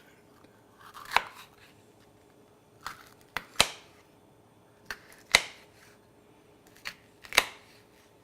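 Slow, uneven knife cuts through a bell pepper onto a cutting board: four groups of sharp taps, mostly in pairs, about two seconds apart.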